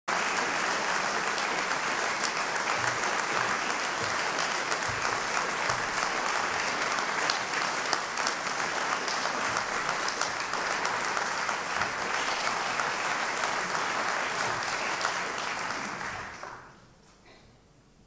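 Audience applauding steadily, dying away about sixteen seconds in.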